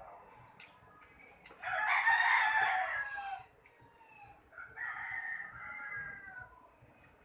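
A rooster crowing twice: a long, loud crow about two seconds in, then a second, quieter crow about five seconds in.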